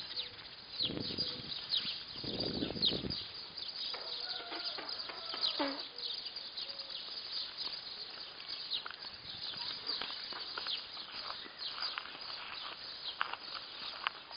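Small birds chirping, many short high chirps throughout, with a short lower animal call about five seconds in. Two low rustles come within the first three seconds.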